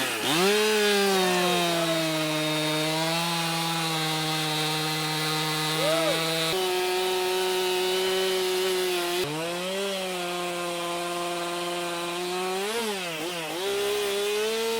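Two-stroke chainsaw running at high revs while carving wood, its engine note holding steady with a few brief dips in pitch: near the start, around ten seconds in, and again shortly after.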